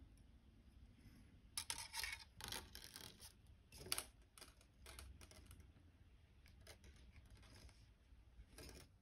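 Thin 22-gauge wrapping wire drawn through and around the wire frame of a cuff bracelet: faint scratchy rubbing of wire on wire in a few short bursts, the loudest about two to four seconds in.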